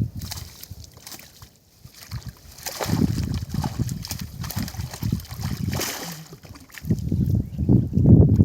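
Water sloshing and splashing in a river, irregular and low, getting louder about three seconds in and loudest near the end.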